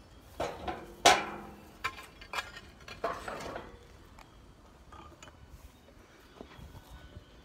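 Handling noise from a phone camera being picked up and moved against clothing. A few sharp knocks in the first second and a half, the loudest about a second in, then rubbing and scraping around three seconds in, then a few faint taps.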